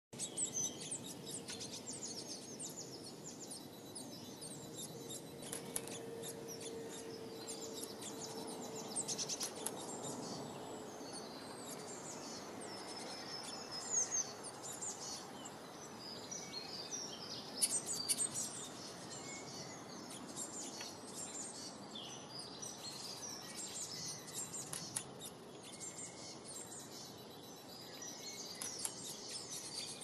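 Small garden songbirds chirping and twittering, many short high calls overlapping, over a steady outdoor background hiss.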